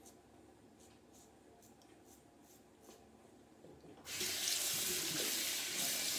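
Faint, short scrapes of a Rockwell 6S safety razor cutting lathered stubble, several strokes in a row. About four seconds in, a bathroom tap starts running hard into the sink, where the razor is rinsed, and this is the loudest sound.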